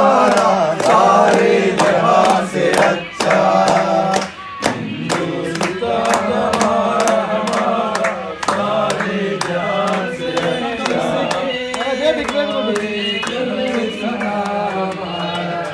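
A group of men singing together, with steady hand clapping in time.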